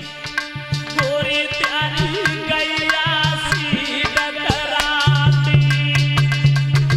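Instrumental interlude of Indian devotional folk music: hand drums beating a quick, steady rhythm under a bending melody line, with a low sustained note that returns about five seconds in.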